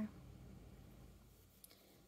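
Near silence: faint room tone with a steady low hum, and one faint tick about one and a half seconds in.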